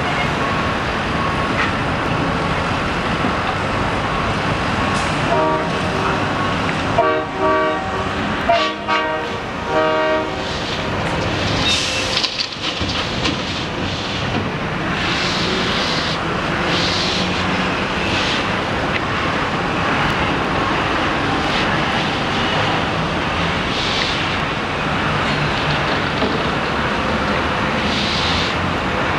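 Steady din of city street traffic and heavy trucks heard from high above, with a horn sounding in several blasts about five to ten seconds in. Short hissing bursts recur through the later part.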